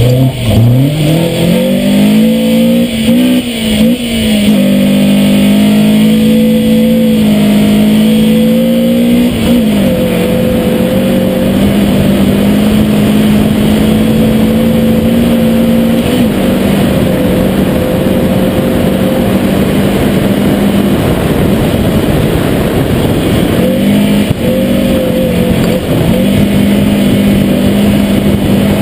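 Rally car engine at full throttle on a loose gravel stage. In the first few seconds the pitch drops and climbs steeply through gear changes, then it holds steady at high revs through a long flat-out run, with small steps and a brief lift near the end. Gravel and wind noise run underneath.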